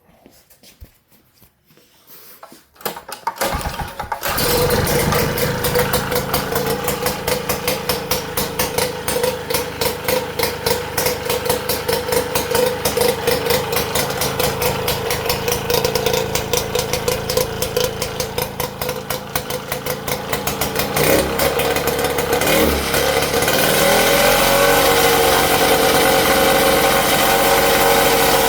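Tecumseh HSK870 single-cylinder two-stroke snowblower engine being started: a few short cranking knocks, then it catches about four seconds in. It runs with an uneven, pulsing beat, then settles into a steadier, louder run near the end.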